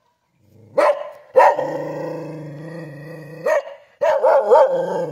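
Kintamani dog barking: a short bark, then a long drawn-out bark-howl held for about two seconds, then a quick run of barks that waver in pitch near the end.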